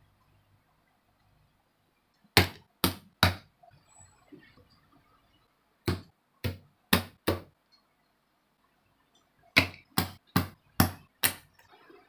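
Hard plastic model-kit parts set down one after another on a cutting mat: sharp clicks in three quick groups, three, then four, then five.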